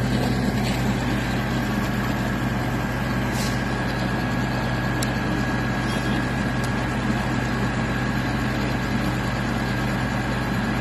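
Kalmar container handler's diesel engine idling steadily, with a thin steady whine above the low hum.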